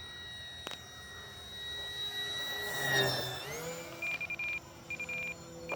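Electric motor and propeller of an FMS Cessna 182 1500mm RC plane whining overhead, then dropping in pitch as it passes close by about three seconds in. After the pass, three short buzzing pulses sound at a steady spacing.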